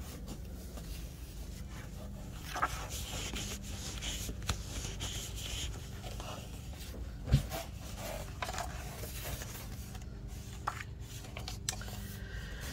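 Pages of a paperback planner workbook being flipped and handled by hand, paper rustling and scraping, with one soft thump about seven seconds in. A faint steady low hum runs underneath.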